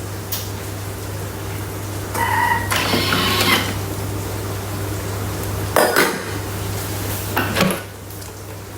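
Kitchen dishes and utensils clinking and knocking a few times, some strikes briefly ringing, over a steady low hum.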